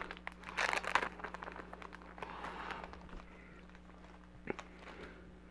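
Trading cards and their packaging being handled: rustling and crinkling with a cluster of sharp clicks in the first second, softer rustling a couple of seconds later, and one light knock near the end, over a faint steady hum.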